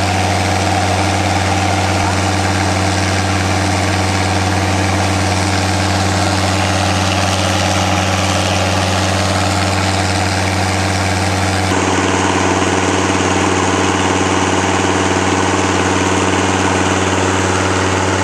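Air compressor engine running steadily during compressed-air development of a newly drilled borehole, a deep steady drone under a dense hiss of air and water blowing out of the well.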